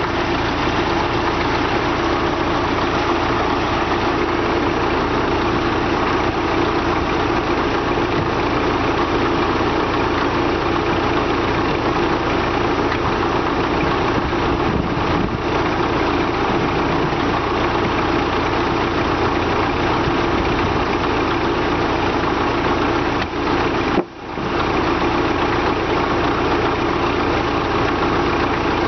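Heavy diesel engine idling steadily with an even hum. The sound drops out for a split second about 24 seconds in.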